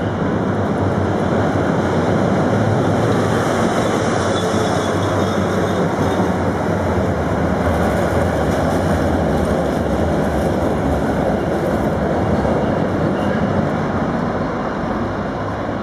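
Konstal 105N trams running past each other on street tracks close by: steady running noise of steel wheels on rail and traction motors, easing off a little near the end.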